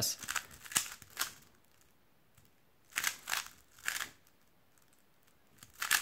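Stickerless 3x3 speedcube being turned in short bursts of quick plastic clicks, broken by pauses of a second or more with no turning. This is a stop-start solve, the sign of poor look-ahead.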